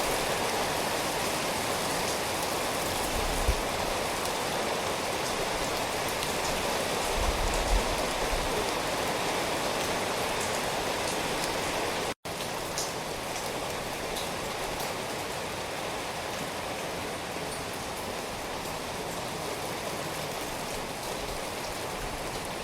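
Steady rain, an even rushing hiss. About halfway through it cuts out for an instant, then resumes slightly softer, with individual drops more distinct.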